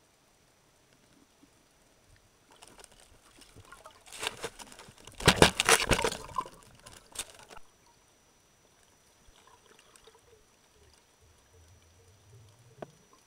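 Underwater knocking, rubbing and scraping against the camera housing as it is jostled. The burst builds over a few seconds, peaks about halfway through and then dies away.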